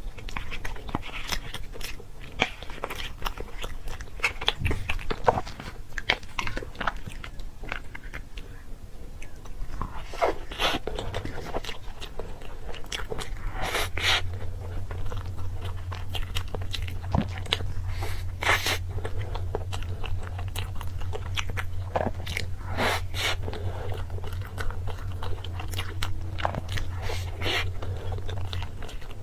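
Close-up crunchy biting and chewing of crisp food, with many irregular crunches.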